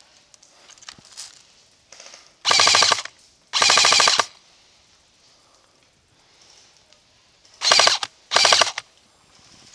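Airsoft rifle fired close by in four short full-auto bursts, each a rapid rattle of shots about half a second long, coming in two pairs with a few seconds between them.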